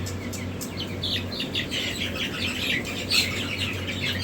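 Many newly hatched chicks peeping together, a dense chorus of short, high, falling cheeps that grows busier partway through, over a steady low hum.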